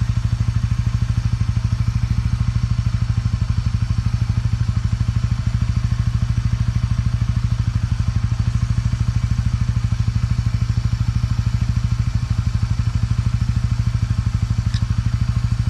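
TVS motorcycle's single-cylinder engine idling steadily with an even, rapid pulse.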